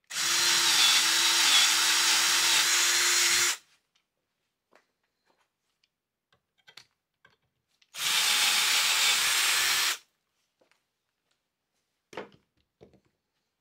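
Cordless drill with a 6 mm bit boring into the end of a cast metal turnbuckle, run twice: about three and a half seconds, then about two seconds starting some eight seconds in, each with a steady motor whine. A few faint clicks near the end.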